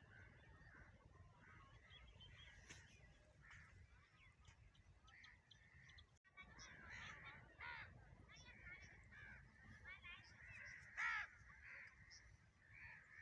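Faint calls and chirps of many birds over a low outdoor rumble, with a louder call near the end.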